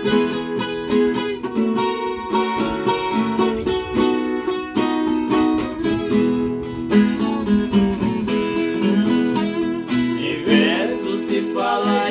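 Viola caipira playing a continuous instrumental passage of plucked, ringing runs, with a singing voice coming in near the end.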